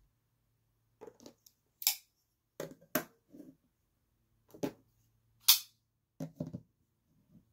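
Folding knives being handled and set down on a cutting mat: a series of soft knocks and sharp clicks in short clusters, the loudest and sharpest about five and a half seconds in.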